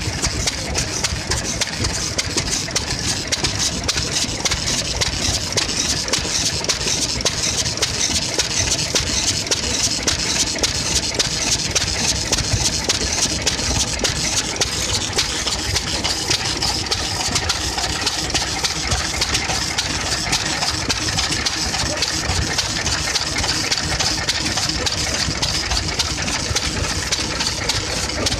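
Vintage kerosene-fuelled stationary engines running together: a steady, rapid stream of exhaust beats.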